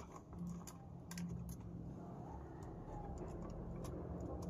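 Faint, scattered small clicks and rustles of hands handling and twisting stripped electrical wires together at a plastic junction box, over a faint low hum.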